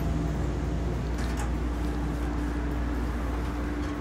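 Steady low hum and rumble inside a stationary Amtrak passenger car, with a faint steady tone running under it.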